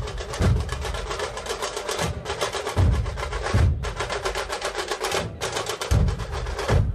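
Dhol-tasha drumming playing fast: the tasha drums keep up a continuous rapid rattle of sharp strokes, and deep dhol beats land at uneven gaps of about one to two seconds.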